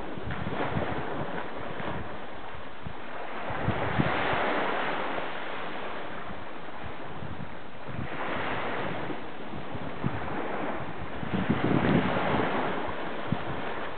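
Small Atlantic waves breaking and washing up a sandy beach, the surf swelling every few seconds, with wind gusting on the microphone.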